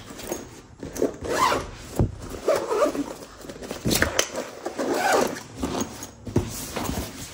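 Backpack zipper pulled back and forth, several short rasps with clicks between them.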